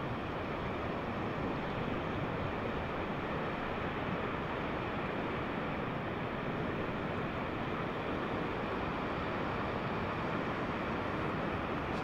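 Small waves washing onto a sandy beach and sandbar, a steady, even rush of surf.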